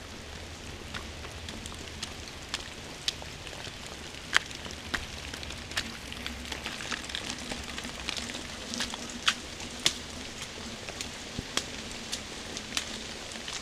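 Steady rain hiss with scattered sharp drips ticking irregularly, about one a second.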